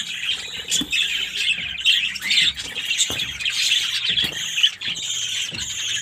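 Budgerigars chattering and squawking without a break, many birds at once, with a few short sharp knocks mixed in; the loudest knock comes a little after halfway.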